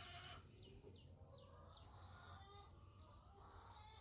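Faint bird chirps, a run of short falling calls with a few longer held notes, over a low steady background hum.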